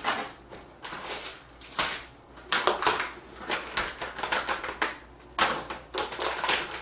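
Clicks, taps and rustles of parts and packaging being handled and set aside while a motherboard box is unpacked.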